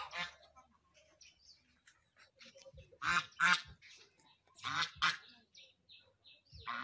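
Domestic goose honking: two short honks about three seconds in, two more about a second and a half later, and another at the very end.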